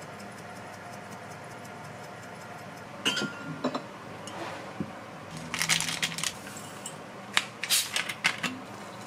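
Kitchenware being handled: a run of sharp clinks and knocks of dishes, utensils or cookware, starting about three seconds in, over a steady hiss of background noise.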